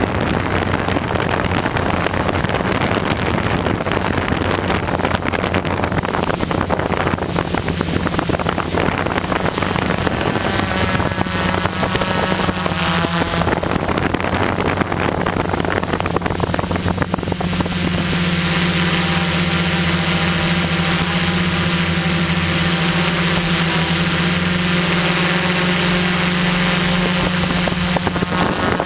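Quadcopter's electric motors and propellers humming steadily, heard from the camera it carries. About two-thirds of the way through the hum turns stronger and more evenly pitched.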